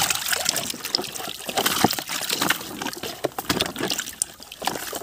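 Water running and splashing in a plastic basket as a hand sloshes and rinses thick mud out of it, with many irregular small splashes.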